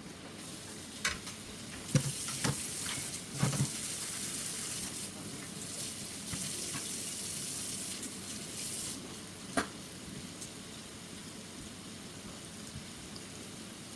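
A steady hiss that lasts until about nine seconds in, with a few sharp clicks and knocks over it, the loudest about two seconds in.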